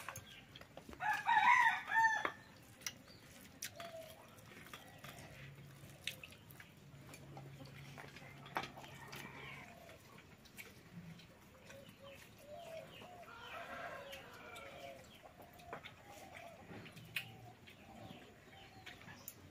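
A rooster crows loudly once, about a second in, and a fainter call comes around two-thirds of the way through. Hens cluck in between, with a few light clicks.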